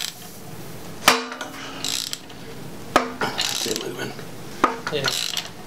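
Ratchet wrench turning a bolt at the crankshaft balancer of a 5.3-litre LS V8 block, in three strokes. Each stroke is a sharp metallic clank with a brief ring, followed by ratchet clicking as the handle swings back.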